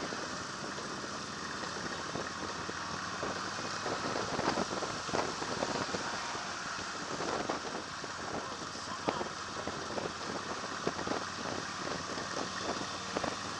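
Motorcycle riding at road speed, heard from the bike itself: steady engine and road noise with wind rushing and buffeting the microphone in frequent irregular gusts.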